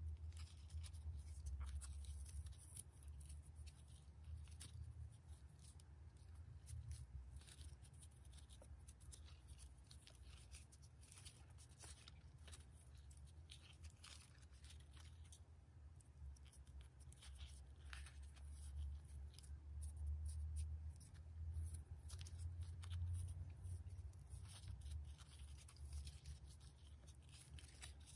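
Faint rustling and scratching of grosgrain ribbon being folded and pinched between fingers, in many small irregular crackles, over a low steady hum.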